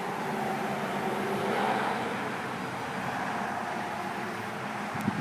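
Vehicle noise: a steady rushing rumble that swells slightly about two seconds in, with a short click near the end.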